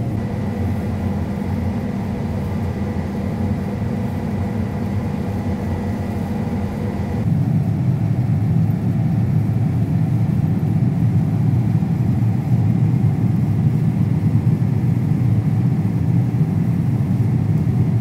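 Steady low rumble of a John Deere combine running at harvest, heard inside its cab. A faint steady high whine runs through the first seven seconds; about seven seconds in, the whine stops and the rumble becomes louder.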